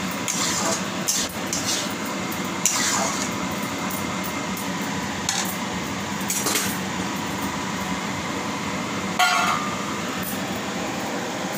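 Steel spatula scraping and clinking against a steel kadai while masala is stirred, in scattered irregular strokes over a steady hiss, the sharpest stroke near the end.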